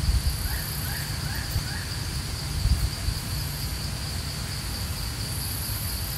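Steady high-pitched drone of insects, with a low rumbling noise underneath. Four short rising chirps come between about half a second and two seconds in.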